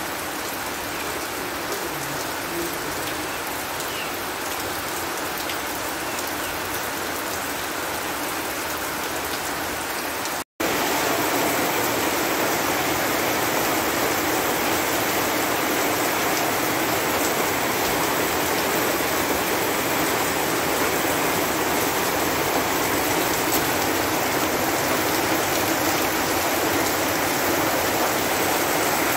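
Heavy rain falling steadily. About ten seconds in there is a brief dropout, after which it comes back a little louder as rain on a corrugated metal roof, with water pouring off the roof edge.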